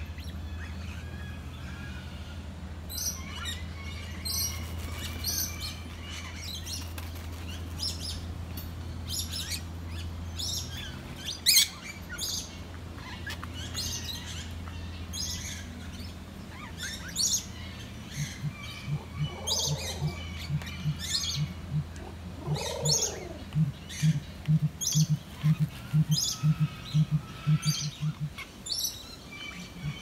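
Many birds chirping and calling at once, short high chirps and whistles scattered throughout, over a steady low hum. In the second half a quick run of regular low pulses, two or three a second, joins in, along with a couple of lower bending calls.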